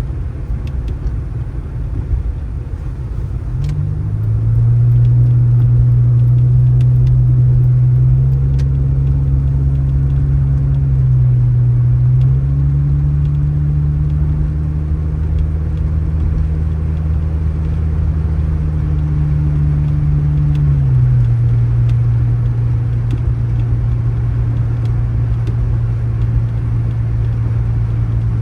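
A motor vehicle's engine running with a low, steady drone. Its pitch climbs about four seconds in, shifts a few times, and drops back lower a little past twenty seconds.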